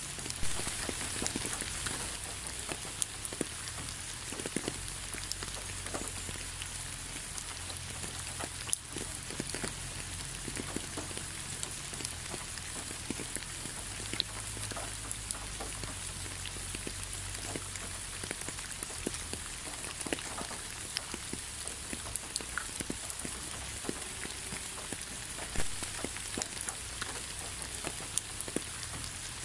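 Steady rain falling, a constant hiss with many scattered close drops heard as sharp ticks.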